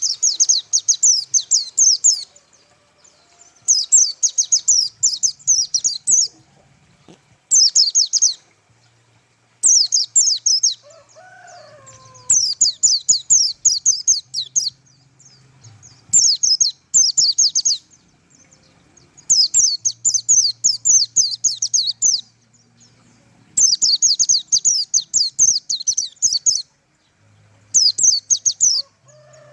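White-eye (pleci) singing a fast, high twittering song in about nine phrases of one to two and a half seconds, with pauses of about a second between them. It is the kind of song Indonesian bird-keepers call 'tembakan', played to train or lure pleci.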